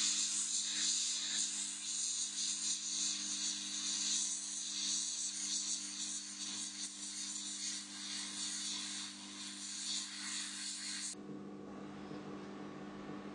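Heat gun blowing hot air onto heat-shrink tubing, a steady hiss that cuts off suddenly about eleven seconds in. A low steady hum continues underneath.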